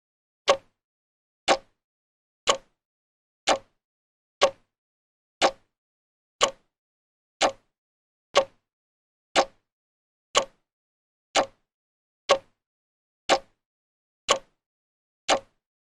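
Clock ticking slowly, about one sharp tick a second, each tick alike.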